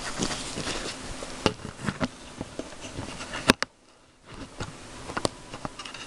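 Handling noise from a hand-held camera being moved: scattered clicks and rustles over a steady hiss. A sharp click comes about three and a half seconds in, and the sound drops out for about half a second after it.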